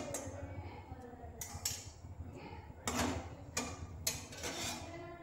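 Metal spatula scraping and knocking against an aluminium kadai in several short strokes, spreading mustard oil that has just been poured into the pan. A low steady hum runs underneath.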